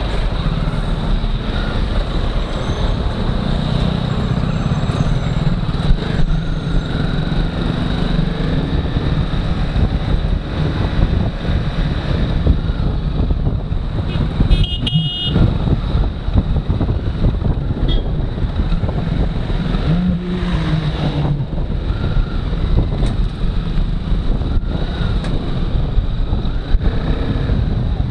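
Motorcycle riding slowly through traffic: steady engine, road and wind noise, with a brief high vehicle horn toot about halfway through.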